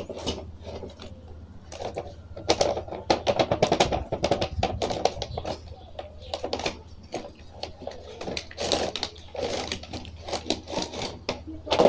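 Cardboard toy box with a clear plastic window being handled and opened, and action figures taken out of its plastic tray: a run of quick crackles and clicks of plastic and cardboard, busiest in two stretches.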